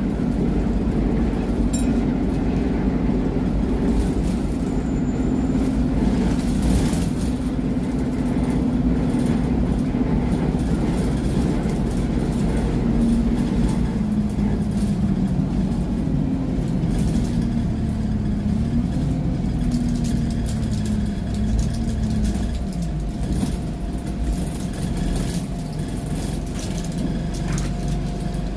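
Alexander Dennis E200 Dart bus's diesel engine heard from inside the passenger saloon while under way, the engine note wavering up and down with the driving. It eases off in the last few seconds as the bus slows for a stop.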